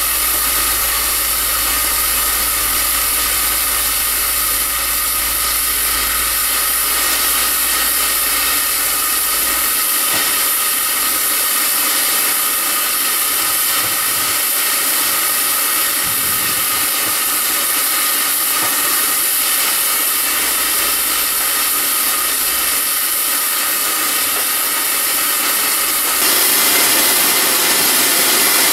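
Steam locomotive No. 4 Loch venting steam in a loud, steady hiss, with a step up in loudness near the end.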